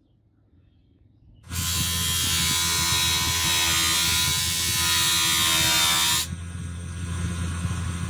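Bench grinder running with a steel knife blade pressed against its wheel: a loud, steady grinding hiss over the motor's hum, starting suddenly about a second and a half in. About six seconds in the grinding drops to a quieter level while the motor runs on, then the sound stops abruptly at the end.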